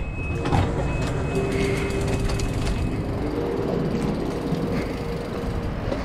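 Red DB S-Bahn commuter train at a station stop: a steady hum and rumble from the train, a high beep twice in the first second and a half, and the clatter of its sliding passenger door.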